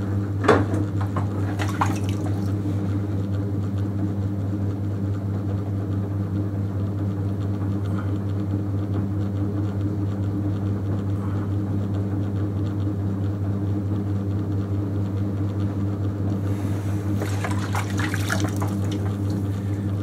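Electric potter's wheel running with a steady hum, while wet clay and slip swish under the potter's hands as a pot is thrown on it.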